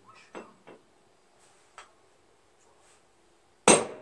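A few light knocks, then near the end one sharp, ringing hammer blow on metal: a riding mower's rear wheel being struck to free it where it is stuck on the axle.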